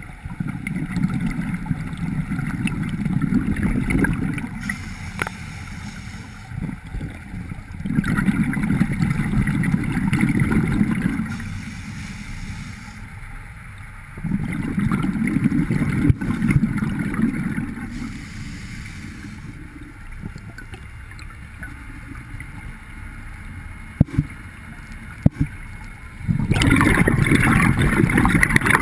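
A scuba diver's exhaled bubbles rumbling out of the regulator, heard underwater through the camera housing, in bursts of three to four seconds with quieter breaths between. There are four exhalations, and the last, near the end, is hissier.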